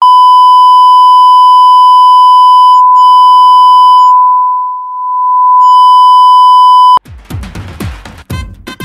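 A 1 kHz reference test tone, the kind played with colour bars: one loud, steady beep with a brief break about three seconds in and a dip in level near the middle. It cuts off suddenly about seven seconds in and electronic dance music with a steady beat starts.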